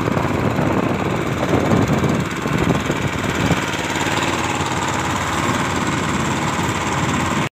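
Power-Tech VX390 gasoline engine running steadily as it drives a small boat under way over the sea. It stops abruptly near the end.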